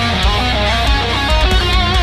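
Electric guitar playing a lead solo line with vibrato on held notes and a pitch bend near the end, over a heavy metal backing track with drums and bass.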